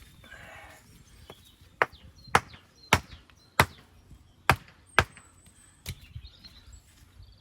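Stone being struck sharply: about seven hard knocks, roughly one every half second to second, as a small pinning stone is knocked or trimmed to fit a gap in a dry stone wall. A short scrape of stone comes just before the knocks.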